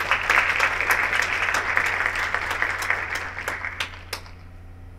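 Audience applauding, a crowd of many hands clapping that dies away about four seconds in with a few last claps.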